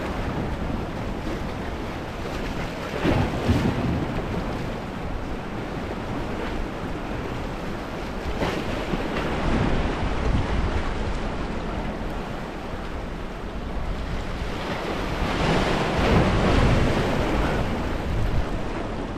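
Waves washing and breaking, with wind buffeting the microphone; the wash swells up louder several times.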